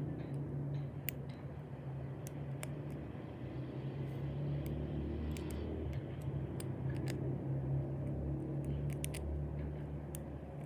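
Bobby pins being worked in a small padlock's keyway: scattered faint clicks and ticks as the pins are picked, over a steady low background hum.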